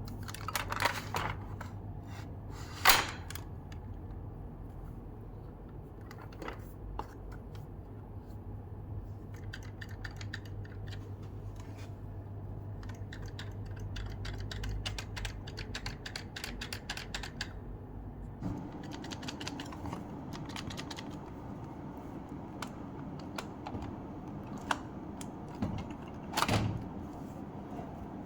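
Scattered light clicks and taps of small hard objects being handled, with a louder knock about three seconds in and another near the end, over a steady low hum that changes tone about two-thirds of the way through.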